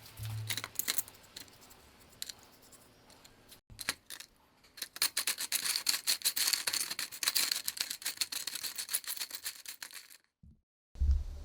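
Hand work on small parts: scattered clicks, then several seconds of rapid scraping or brushing strokes that cut off abruptly, followed by a single short thump near the end.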